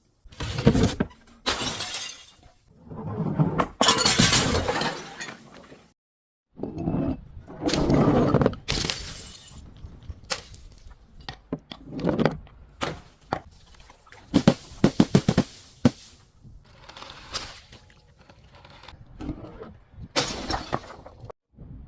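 Glass bottles breaking and being crushed: a string of separate shattering crashes and crunches, with a quick run of sharp cracks about two-thirds of the way through.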